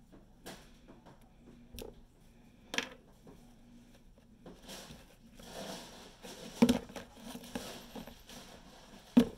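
White slime being stirred and kneaded by hand in a clear plastic tub: soft irregular squishing and rustling, broken by sharp taps and knocks of the tub and spatula, the loudest two about two-thirds of the way in and near the end.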